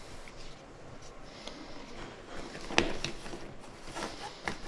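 Test leads and crocodile clips of an electrical tester being handled and sorted: light rustling with a few sharp clicks, the loudest a little under three seconds in.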